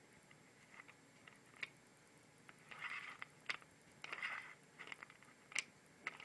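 Faint scattered clicks with two brief scraping rustles about three and four seconds in.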